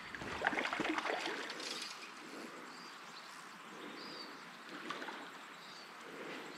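Steady sound of the river with a small bird repeating a short, high call three times, about every second and a half. Scuffs and knocks in the first two seconds.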